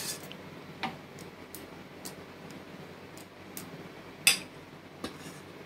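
Light, scattered clicks and clinks of a steel spoon touching a stainless steel plate as curd is spooned over vadas, one sharper clink a little over four seconds in.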